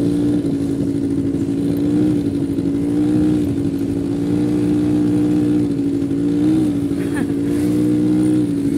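Quad bike (ATV) engine running at a nearly steady pitch while riding over sand, with brief small rises in revs about two seconds in and again near the end.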